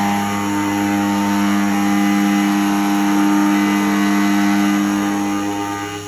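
Keyline Laser 994 key cutting machine running, its cutter motor giving a steady, loud whine as it cuts a key blade; the sound drops in level near the end.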